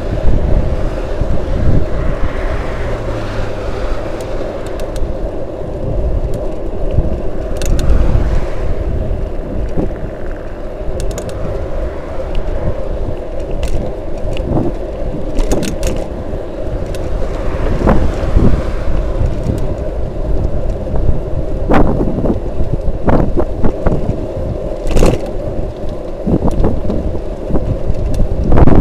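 Wind rushing over the microphone of a camera mounted on a moving bicycle, with steady tyre and road rumble. Scattered sharp clicks and rattles, more of them in the second half, from the bike and its camera mount jolting over the road surface.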